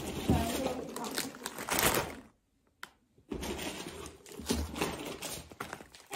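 Plastic instant-noodle packets crinkling and rustling as they are handled and stacked, with a break of about a second in the middle.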